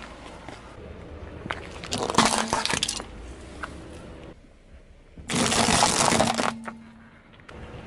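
A car tyre rolling over and crushing small hard objects. There is a burst of crunching and cracking about two seconds in, and a louder, longer crunch from about five to six and a half seconds in.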